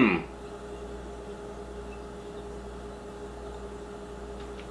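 Steady room hum in a small kitchen, with a faint steady tone above it. A short spoken "oh" trails off right at the start.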